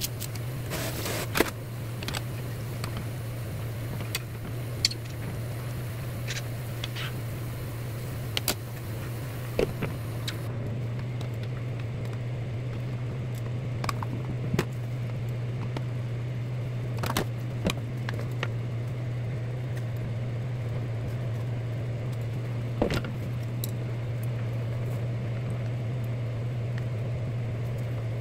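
A steady low hum runs throughout, with scattered sharp clicks. Kitchen scissors snip green onions over a pot in the first few seconds, then wooden chopsticks tap against a plastic lunch container.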